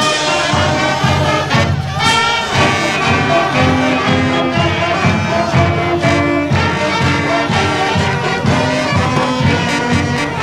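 A brass marching band playing, trumpets and trombones over a steady beat.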